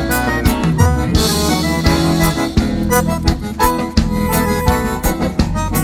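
Instrumental break of a gaúcho song in bugio rhythm: a reedy accordion leads the melody over a band with a steady beat.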